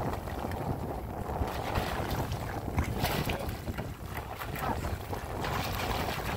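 A hooked yellowfin tuna thrashing at the surface right beside a small boat's hull, splashing water, with bursts of splashing about three seconds in and again near the end. A steady low rumble of wind on the microphone runs underneath.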